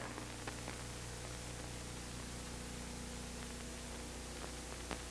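Steady hiss and low mains hum of an old black-and-white documentary's soundtrack with no speech, with a few faint clicks, one near the end.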